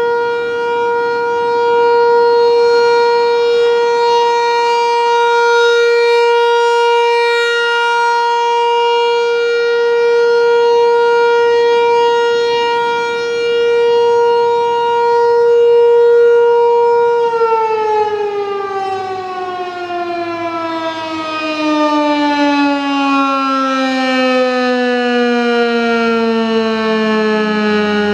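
ASC T-128 rotating electromechanical warning siren sounding a steady single tone. About two-thirds of the way in it begins winding down, its pitch falling smoothly and continuously as the rotor slows.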